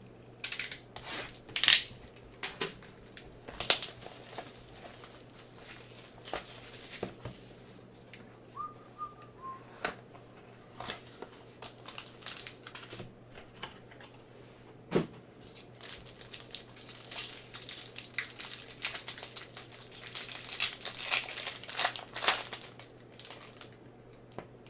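Plastic wrapping crinkling and tearing as a trading card box is unsealed and opened, with scattered sharp clicks and knocks from handling the box and its packaging.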